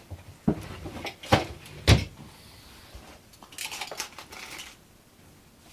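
Three sharp knocks and clicks as small parts are handled on a workbench, then about a second of rustling from a small plastic parts bag being opened or searched.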